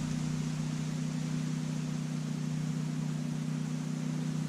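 A steady mechanical hum with two low tones over an even hiss, unchanging throughout.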